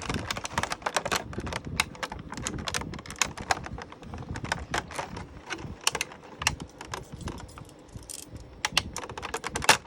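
Rapid, irregular clicks and crackles of plastic packaging being handled while the ties holding an action figure in its tray are cut.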